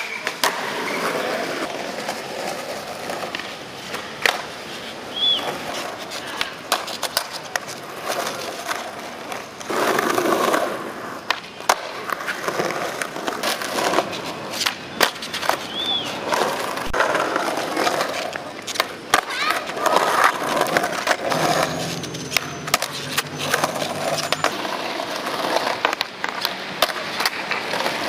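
Skateboards rolling over concrete, with repeated sharp clacks of tails popping and boards landing and slapping down.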